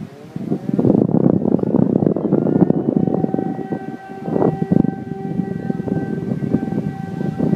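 DS977 civil-defence motor siren winding up, its pitch rising over about three seconds and then holding a steady wail. Heavy wind noise on the microphone runs under it.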